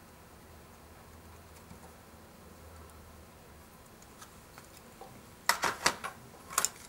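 Light ticks from a metal drawing compass being worked on paper. About five and a half seconds in comes a quick cluster of sharp clicks and knocks, with two more near the end, as the compass is put down and a scale rule is laid on the desk.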